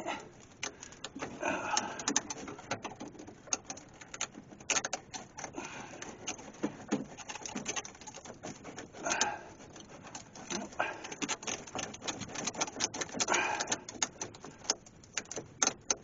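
Locking vise-grip pliers clamped on the seized ignition switch collar of an AMC Rebel, clicking and scraping in a string of sharp, irregular metal clicks as the switch is worked back and forth to break it loose.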